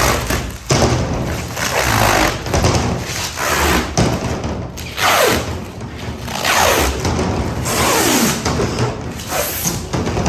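Sticky plastic film being peeled off a surface in repeated pulls, crackling and tearing with squeaky falling screeches as the adhesive lets go.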